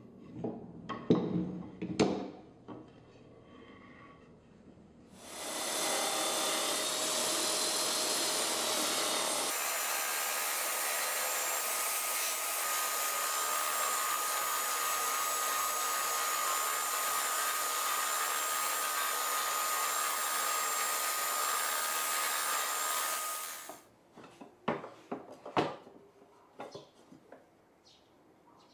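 Drill press spinning a sanding drum against the edge of a wooden spatula blank: a loud, steady run with a steady whine, starting about five seconds in and stopping about five seconds before the end. A few knocks come before it and a scatter of knocks and scrapes after it.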